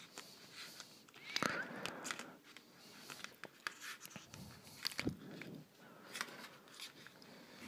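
Faint, irregular small clicks, taps and crackles of a soldering iron tip and solder wire working the pads of a small hand-held circuit board, with a brief chirp about a second and a half in.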